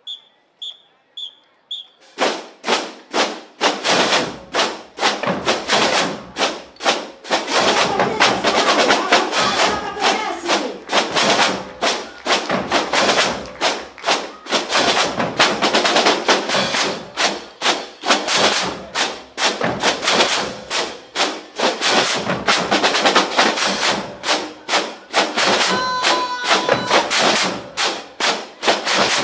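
Four short whistle blasts count off, then a marching percussion band of snare drums, bass drums and crash cymbals starts playing together in a steady driving rhythm.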